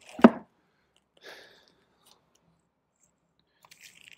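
A vinyl record in its jacket knocks sharply into the box set's compartment as it is pushed back in, followed by a brief scrape of sleeves sliding against each other and light rustling as another record jacket is drawn out.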